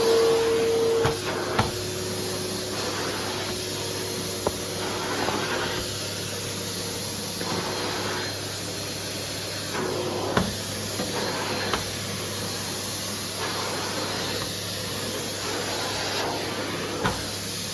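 Numatic Henry 180 Plus vacuum cleaner running steadily with a hum and a continuous hiss, its motor just up to speed. A few sharp knocks come through it, the loudest about ten seconds in.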